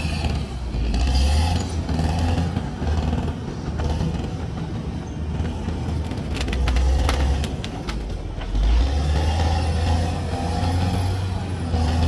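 CAT D6R bulldozer's diesel engine running under working load, its low rumble swelling and easing every second or two. A quick run of sharp clicks comes about six to seven seconds in.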